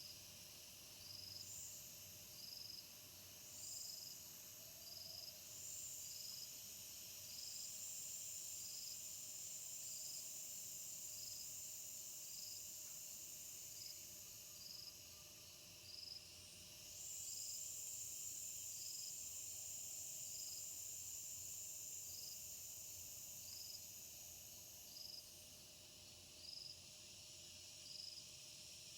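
Insects: a cricket chirping with short high chirps about once a second, and a higher insect buzz that swells and holds for long stretches twice.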